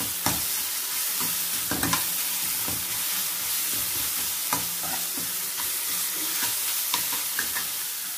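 Chopped onions sizzling in hot oil in a kadai as a stainless-steel ladle stirs them, with the ladle now and then scraping and clicking against the pan. The sizzle is a steady hiss, and the stirring stops near the end.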